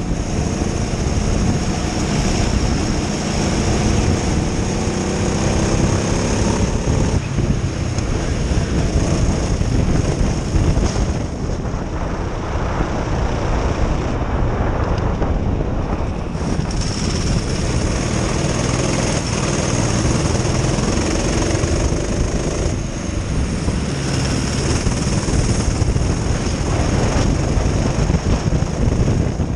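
Onboard sound of a Honda-powered Prokart racing kart: the engine rises in pitch as it accelerates out of corners and drops back each time the driver lifts, several times over, with wind noise on the microphone throughout.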